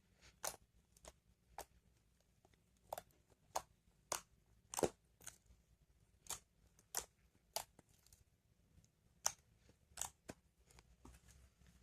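Unfinished homemade slime being kneaded and played with by hand to work out its stickiness, giving irregular sharp wet clicks and pops about one or two a second, the loudest about five seconds in.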